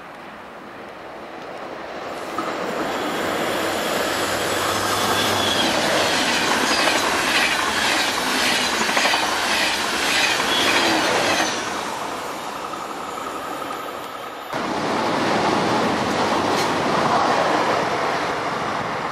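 A train running through a station, growing louder as it comes in, with high-pitched wheel squeal and a rhythmic clatter of wheels over the rail joints. The sound jumps abruptly about three-quarters of the way in, and the rushing of a passing train goes on.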